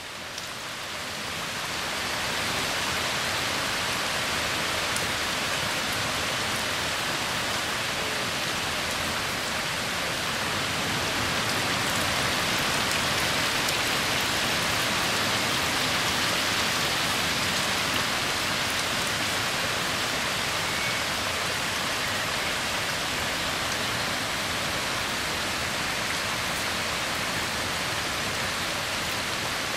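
Heavy rain pouring down steadily, an even hiss that fades in over the first two seconds.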